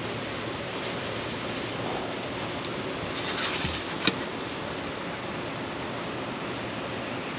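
Steady rushing wash of river water and wind, with one sharp click about four seconds in.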